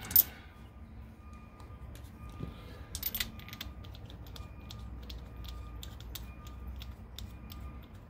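Light clicks and clatter of hand tools and a spark plug wire boot being handled on a motorcycle V-twin cylinder head. There is a sharp click just after the start and a short run of clicks about three seconds in.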